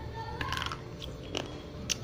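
Slate pencil being bitten and crunched between the teeth: a few sharp, crisp cracks, the loudest near the end.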